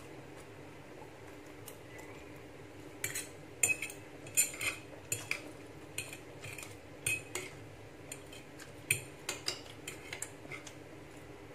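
Metal fork and spoon scraping and clinking against a plate while the last of the spaghetti is gathered up. The clinks are short and irregular, sparse at first and more frequent from about three seconds in.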